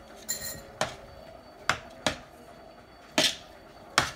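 A metal slotted spoon knocking and scraping against a large wooden bowl while chopped potato salad is stirred: about six sharp, irregular knocks.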